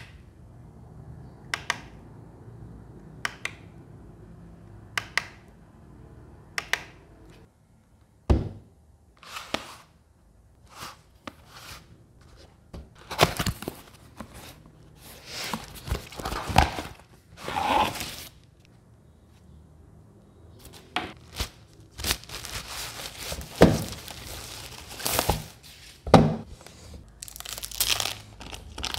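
Packaging being unwrapped: a cardboard box opened, paper crinkling and plastic film rustling and tearing, with irregular thunks as the box and speaker are handled. Before this, a few sharp clicks about a second and a half apart over a low hum.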